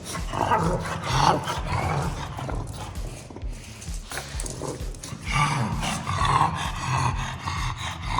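Pug snoring: two long, rough snoring breaths, the first starting about half a second in and the second about five seconds in, with another beginning at the very end.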